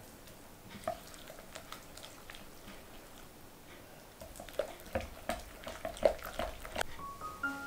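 Light clinks and taps of kitchen utensils against dishes, sparse at first and busier from about four seconds in.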